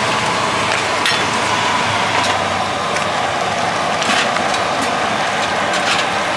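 Steady roadside traffic noise, with a few light clinks of a steel ladle against a stock pot and a bowl as broth is ladled over river snails.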